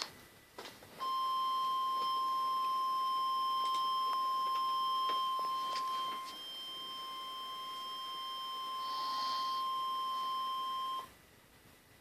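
NOAA Weather Radio 1050 Hz warning alarm tone: one steady high-pitched beep that starts about a second in, holds for about ten seconds with a dip in level about halfway, then cuts off. It signals that a warning broadcast is about to follow.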